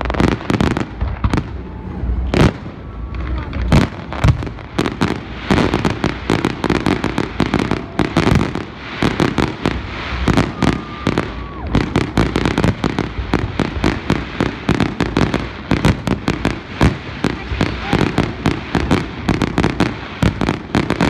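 Aerial fireworks shells bursting in a dense, rapid barrage of sharp bangs, several a second, coming even thicker from about eight seconds in.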